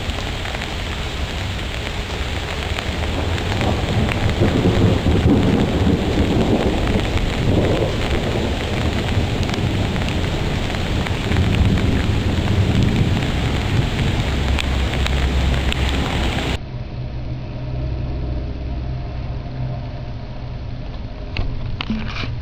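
Heavy rain pouring down hard, with a long rolling rumble of thunder swelling through the middle. Near the end it cuts abruptly to a quieter, duller sound with a steady low hum.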